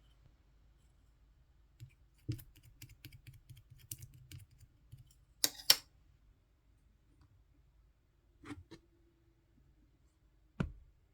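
Light clicks and taps from handling a tub of melted slime, with two sharp, loud clicks about halfway through and a few single knocks near the end.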